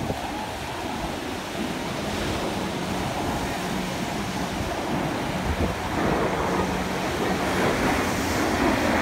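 Jet engine noise from a four-jet formation passing in the sky: a steady rushing sound that grows louder over the last few seconds.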